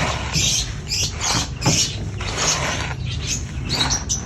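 Dry, sandy charcoal being crumbled by hand: a run of gritty, crunching crackles that come in quick irregular clumps, several a second.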